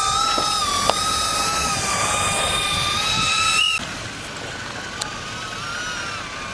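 Off-road vehicle running with a high, slightly wavering whine. The whine rises briefly just past halfway, then drops abruptly to a quieter, similar whine.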